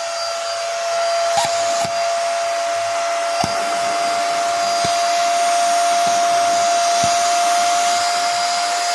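Midea MT 21 NRE vacuum cleaner running steadily: a high motor whine over a rush of suction air, with a few light clicks. It gets a little louder about a second in.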